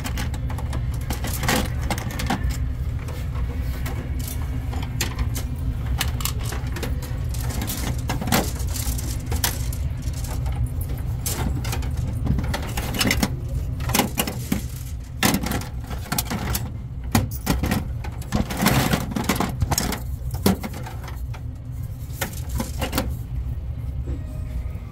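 Small plastic toys clacking against each other and the plastic tote as a hand rummages through them: a string of irregular knocks and rattles over a steady low hum.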